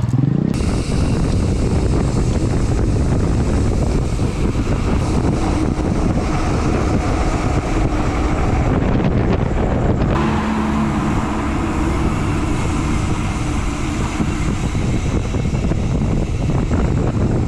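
Wind rushing and buffeting on a bicycle-mounted action camera's microphone while riding, a loud steady noise. About ten seconds in, the noise changes and a low steady hum joins it.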